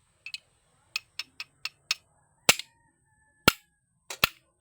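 A string of sharp cracks and clicks, a few light ones quickly in a row and then four louder snaps, from seafood shells being cracked open to eat.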